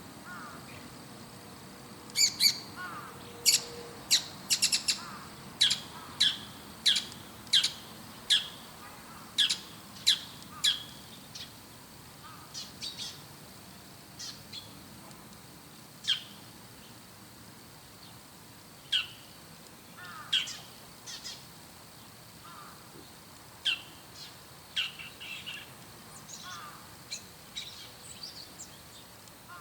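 Bull-headed shrike calling: a quick series of shrill, sharp calls, one to two a second, for about ten seconds, then sparser and softer calls.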